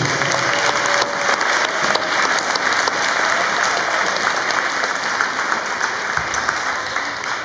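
Audience applauding, many hands clapping steadily, tapering off near the end.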